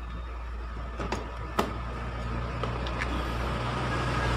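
Plastic blender jug being lifted off its motor base, giving a few sharp clicks and knocks over a steady low hum that grows louder.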